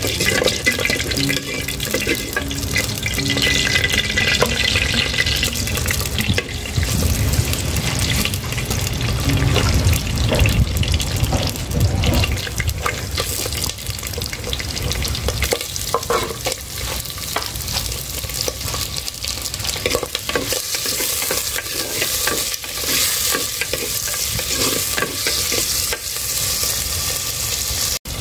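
Pork pieces frying in hot oil in a wok, a steady sizzle, with a wooden spatula stirring and scraping them against the pan in the first half. The sizzle turns brighter and more hissy in the second half.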